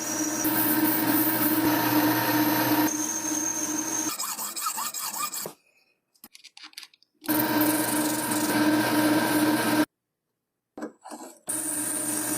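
A power tool's motor running steadily with a rough noise of material being worked, broken by two short silences, about halfway in and again near the end.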